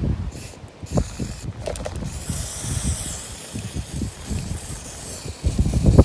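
Aerosol can of blue hoof spray hissing onto a sheep's hoof: a short burst about a second and a half in, then a longer spray of about three seconds. A low rumble of handling runs underneath.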